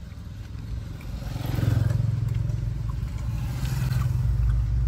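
Low, steady rumble of a motor vehicle engine, growing louder about a second and a half in and staying up.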